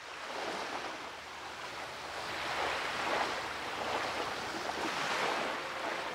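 Sea waves surging: a steady rushing wash that swells and eases every second or so.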